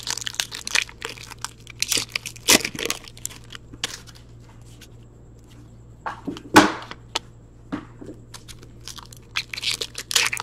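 Foil trading-card pack wrapper being torn open and crinkled by hand: a run of short crackles, with two sharper snaps about two and a half and six and a half seconds in.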